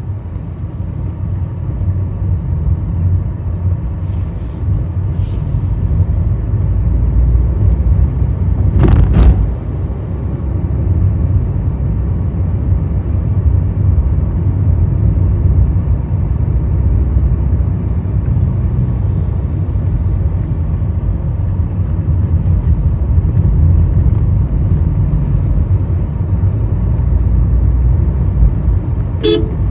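Low rumble of a car's engine and tyres heard from inside the cabin as it moves slowly on a narrow road, with a sharp knock about nine seconds in and another near the end.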